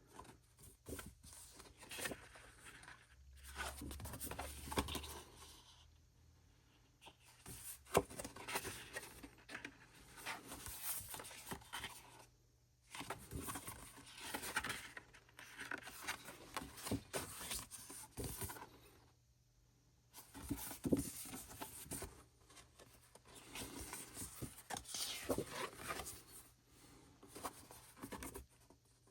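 Paper and cardboard album contents being handled: rustling, sliding and tapping in irregular bursts, broken by a few short pauses.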